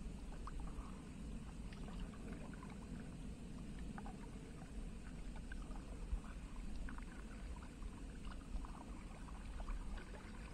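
Kayak paddle strokes in the water: small splashes and drips coming in loose clusters every couple of seconds, over a low steady rumble.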